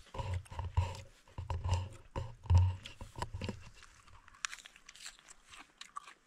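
Rustling and bumping of a wild sorrel plant being pulled and handled, then crisp crunching as its fresh leaf is bitten and chewed close to the microphone, a run of small sharp clicks in the last few seconds.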